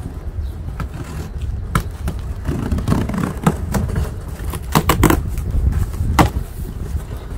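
Scissors slitting the packing tape on a cardboard box: the blade scrapes along the cardboard, with several sharp snips, over a steady low rumble.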